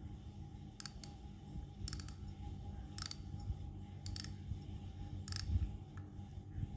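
Daiwa BG 13 spinning reel being worked by hand: five short bursts of crisp mechanical clicking, about one a second, over low handling rumble.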